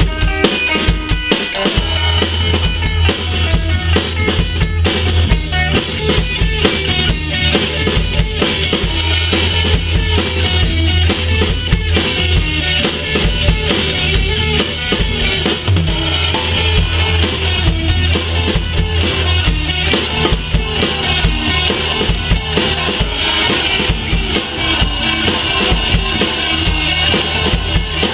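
A live rock band playing: drum kit with kick, snare and rimshots, along with electric guitar and bass guitar.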